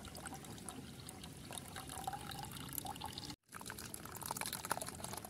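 Thin liquid poured from a steel mixer jar into a strainer and then in a thin stream into a steel vessel, trickling and splashing steadily, with a brief break about three seconds in.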